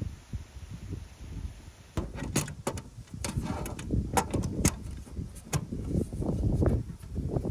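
Wind buffeting the microphone, with a string of sharp clicks and knocks starting about two seconds in.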